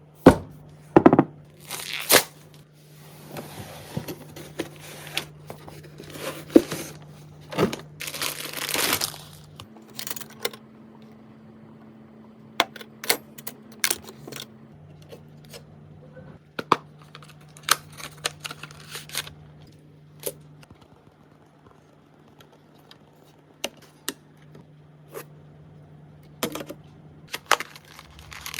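Hands handling PC parts and their packaging: plastic wrapping crinkling and tearing in several long swishes, with scattered sharp clicks and taps of parts being set down and fitted, over a faint steady low hum.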